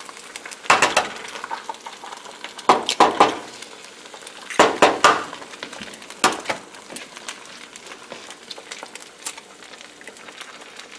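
Eggs being cracked on the edge of a skillet, with several clusters of sharp knocks in the first six seconds or so. Underneath is a steady sizzle of onions frying in the pan.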